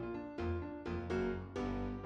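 Background music led by piano: struck notes and chords in a steady rhythm over a bass line.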